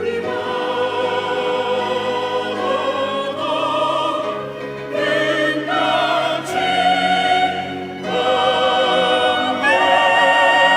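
Church choir singing an anthem in sustained chords with vibrato, changing chords several times. Near the end it moves up into a loud held chord.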